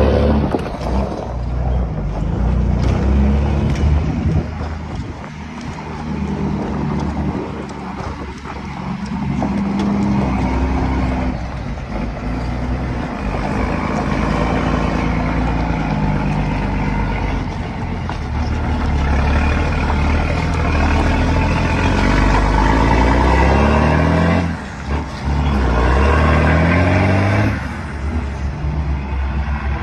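Iveco Tector truck's diesel engine running under load, its pitch climbing through a gear and dropping at each gear change, twice near the end.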